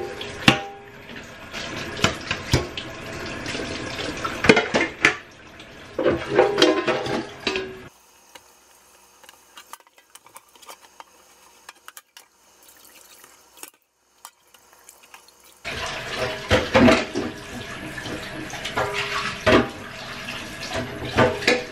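Kitchen tap running into a stainless steel sink while dishes are rinsed, with clatter and clinks of a metal colander and other dishes. The water stops about eight seconds in, leaving a quiet stretch with faint clicks, and runs again about sixteen seconds in.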